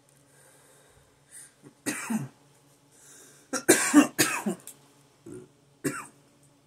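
A man coughing after smoking cannabis from a bowl: one cough about two seconds in, a loud run of coughs in the middle, and a last single cough near the end.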